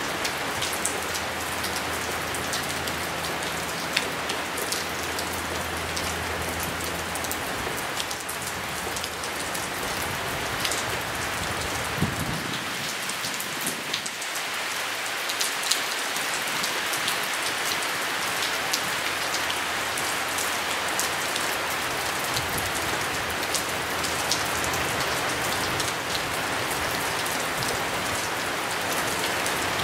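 Steady rain falling, a constant hiss of drops with scattered sharper ticks of single drops landing close by.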